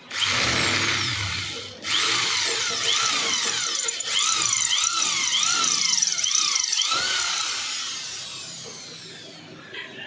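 Drill press boring out a damaged threaded bolt hole in an aluminium cylinder head, the bit squealing in the metal with a pitch that wavers up and down. The cut breaks off for a moment just under two seconds in, and the sound falls away near the end as the drill winds down.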